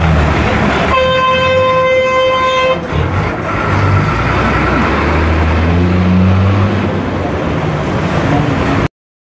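A vehicle horn blows once, a single steady tone lasting under two seconds, about a second in, over traffic noise heard from inside a moving bus. From the middle on, the bus engine's low steady hum comes to the fore.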